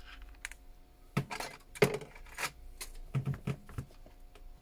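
Small repair tools and parts handled on a workbench: a string of light clicks and taps, with two brief scraping clatters in the first half and a quick cluster of knocks later.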